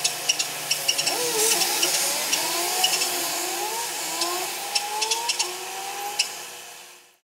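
Street traffic at an intersection: a steady hiss of passing cars, with a run of short rising tones and many sharp high chirps. It fades out near the end.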